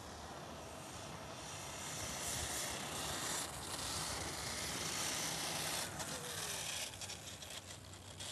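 Wind rushing over the microphone of a small camera hanging from a kite string: a hiss that builds about two seconds in, flutters near the end and then cuts off abruptly.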